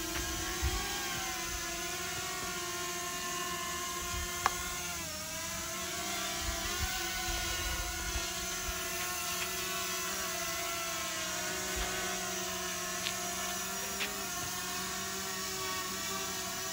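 Walkera T210 mini quadcopter hovering close by, its propellers giving a steady multi-pitched whirring hum. The pitch dips briefly about five seconds in, and a few faint clicks sound over it.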